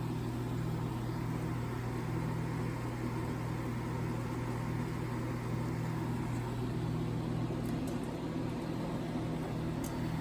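Mid-1960s Rootes Tempair portable air conditioner running: a steady low hum under an even rush of air from its fans, like a white noise machine.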